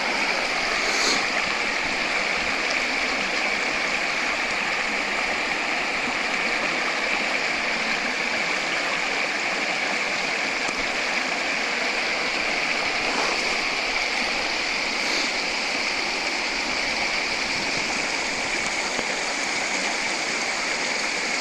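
A river flowing steadily, a constant rush of water with a few faint clicks.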